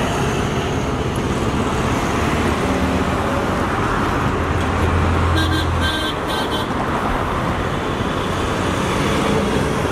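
Steady road traffic running past, with a vehicle's engine rumble swelling about four to six seconds in and a quick series of short horn beeps about five and a half seconds in.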